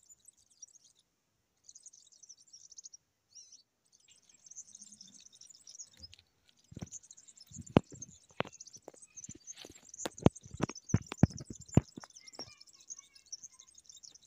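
Small birds chirping in a fast, high-pitched twitter. From about halfway through, a run of a dozen or so sharp knocks, louder than the chirping.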